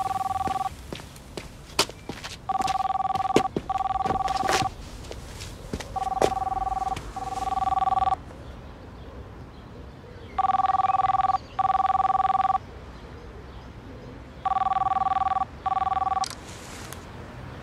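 Telephone ringing in a double-ring pattern: two-tone rings of about a second each come in pairs, one pair about every four seconds, five times over. A few light clicks fall between the early rings.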